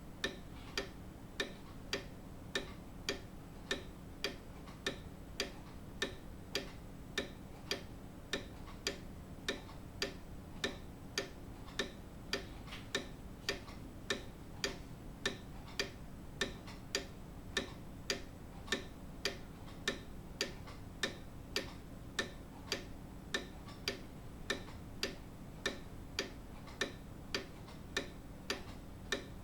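Grandfather clock ticking steadily, with sharp, evenly spaced ticks.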